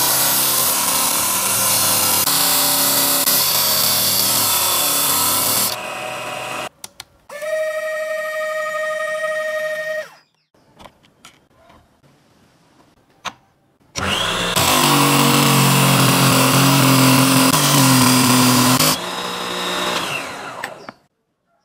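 Homemade PVC mini disc sander, driven by a 775 DC motor through a GT2 toothed belt, grinding wood against its sanding disc in two long passes. Between the passes it runs unloaded with a steady whine, then stops, and a few small clicks follow.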